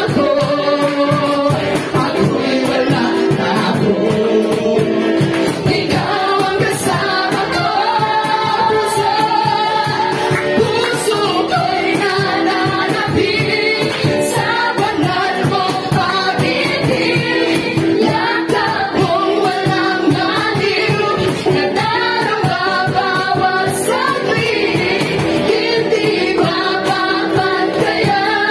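Live worship music: women singing lead into microphones, with other voices joining and instrumental backing.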